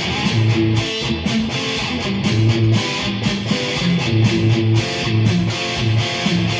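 Squier Sonic electric guitar, fitted with new pickups, played through an amp with overdrive: a riff of picked notes with a low note pulsing rhythmically.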